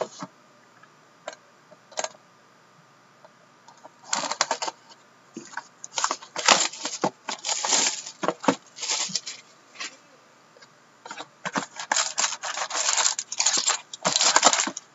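Clear plastic shrink-wrap crinkling and tearing as it is stripped from a sealed hockey card box, in two long stretches of rustling bursts starting about four seconds in, then packs of cards being pulled out of the box. A few light clicks of the box being handled come before.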